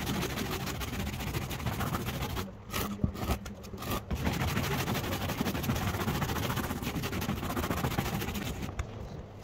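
A stiff hand brush scrubbing back and forth over the lead came and glass of a leaded stained glass panel, a steady rasping brushing with a few short breaks about three seconds in. The brushing tightens the lead came and rounds its profile.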